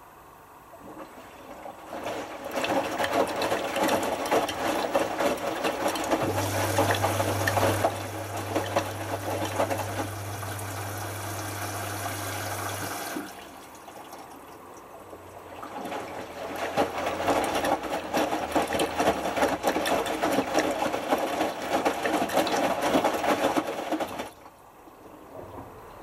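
Hotpoint HF8B593 washing machine drum tumbling wet laundry in rinse water during the final rinse: churning and sloshing for about ten seconds, a pause of a couple of seconds, then another tumble of about eight seconds that stops suddenly. A steady low hum runs under the first tumble from about six seconds in, cutting off as the drum pauses.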